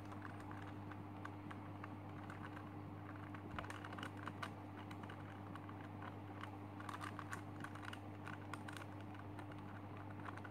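Plastic clicking and clacking of a Super Square One twisty puzzle's layers being turned by hand, in scattered runs of quick clicks, over a steady low hum.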